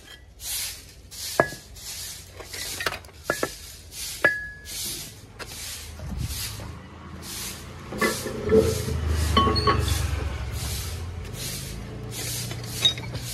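Pieces of scrap iron clinking and clanking as they are picked up and handled, with a few sharp ringing clinks in the first half and a cluster of heavier clanks over a low rumble a little past the middle, amid rustling.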